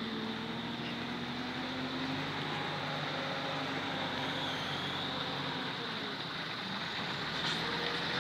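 Engine of a small dump truck loaded with dirt, running steadily with a low hum.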